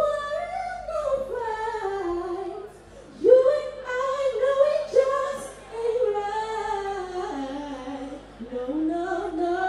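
A woman singing into a microphone, holding long notes that slide up and down in pitch, with two short breaks about three and eight seconds in.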